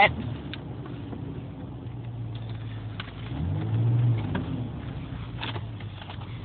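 Jeep engine running steadily, revving up about three and a half seconds in and then easing back, with a few faint ticks.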